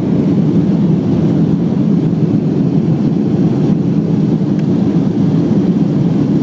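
Steady roar of a jet airliner heard from inside the passenger cabin, a low, even rush of engine and air noise.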